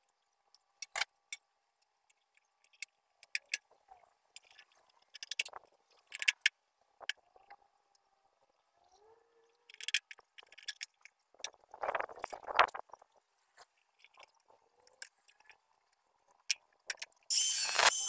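Light metallic clinks, rattles and scrapes of small hardware being fitted by hand to a thin sheet-metal drum. Near the end a cordless angle grinder starts up loudly against a metal part.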